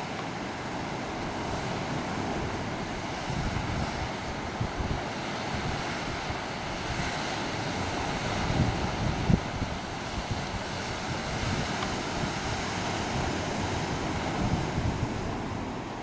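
Sea surf washing steadily on the shore, with wind buffeting the microphone in uneven low thumps.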